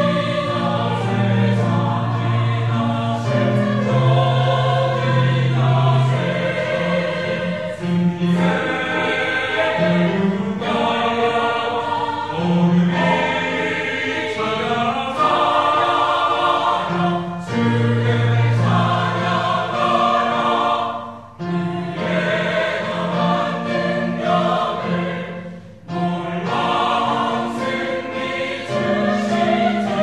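Mixed church choir of men's and women's voices singing a hymn in Korean. The notes are held in long phrases, with two short breaks between phrases.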